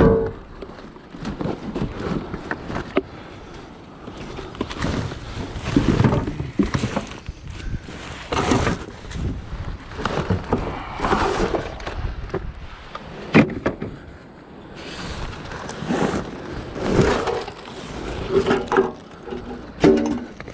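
Irregular knocks, clatters and cracks of wooden and metal junk being pulled about and handled while sorting through a pile for scrap metal.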